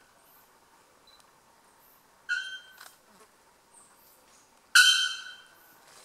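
Young male bare-throated bellbird giving two loud calls: a shorter one about two seconds in and a louder, longer one near the end, each starting sharply on one pitch and fading away.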